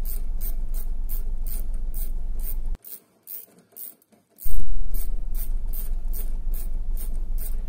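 Ratchet wrench clicking steadily, about three to four clicks a second, as it runs in the large bolt holding the brake caliper bracket to a C4 Corvette's steering knuckle. The clicking breaks off for a second and a half a little before the middle, then comes back with a loud start.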